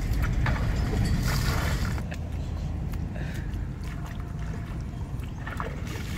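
Water splashing and sloshing as a plastic bucket is dipped into a shallow muddy pond and emptied out, bailing the pond; several short splashes over a steady low rumble that is stronger in the first two seconds.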